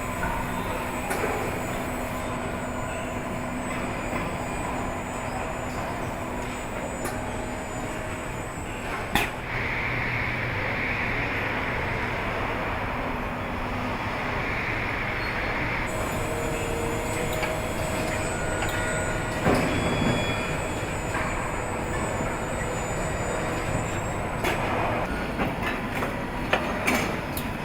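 Car assembly-line factory ambience: a steady hum and hiss of machinery with a few steady tones and occasional sharp clicks and clanks. The sound changes abruptly twice as the footage cuts between shots.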